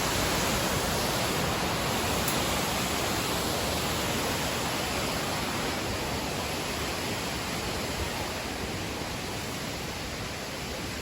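Steady rushing roar of a waterfall, gradually easing a little in level.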